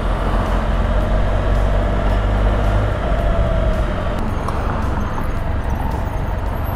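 Can-Am Spyder RT three-wheeler's Rotax 1330 three-cylinder engine running steadily while riding, with wind and road noise.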